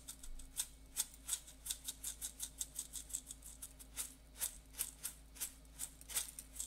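Spice grinder being twisted to grind seasoning, giving a run of sharp, unevenly spaced clicks, about three a second.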